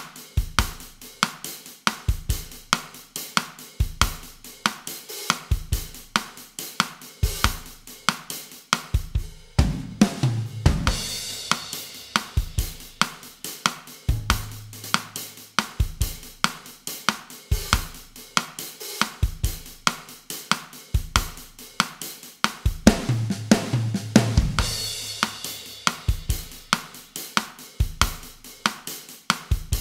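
Drum kit playing a bossa nova groove at 140 bpm, with kick, snare and hi-hat or cymbals in an even pattern. Twice, about ten seconds in and again near the two-thirds mark, a fill on low drums leads into a cymbal crash.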